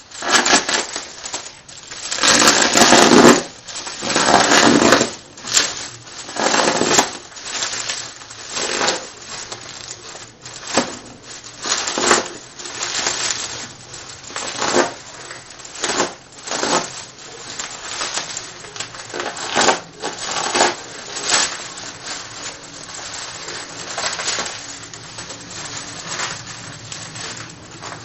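Plastic bubble wrap crinkling and crackling in irregular bursts as it is pulled and unwound by hand, loudest between about two and five seconds in.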